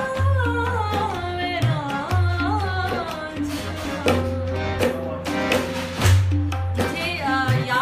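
A woman singing a slow, ornamented melody with sliding pitch, accompanied by tabla whose low drum strokes ring out under the voice.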